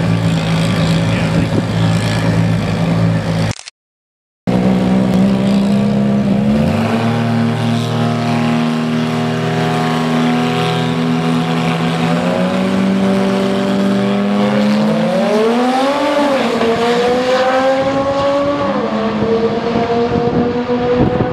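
Two drag-racing cars, a DSM and a Mitsubishi 3000GT, hold their engines at a steady note on the starting line, and the pitch steps up about six seconds in. After a brief cut-out of the sound around four seconds in, the cars launch about twelve seconds in. The engine pitch climbs and drops sharply at each gear change as they accelerate away down the strip.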